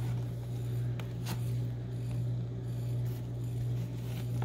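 A steady low hum, with a few soft crinkles and clicks from the plastic release film of a diamond-painting canvas being lifted and handled.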